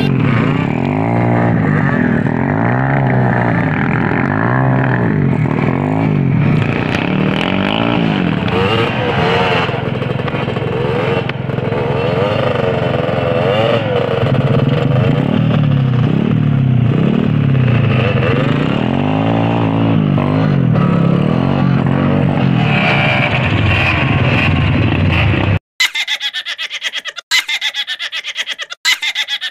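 Kawasaki KLX trail bike's single-cylinder engine running on a trail ride, revving up and dropping back over and over as the throttle is worked. About 26 seconds in the engine sound cuts off abruptly, and brief broken-up bursts of sound follow.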